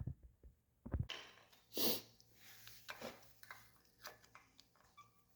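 Faint scattered clicks and light knocks of hand tools and metal parts being handled, with one short soft rush about two seconds in.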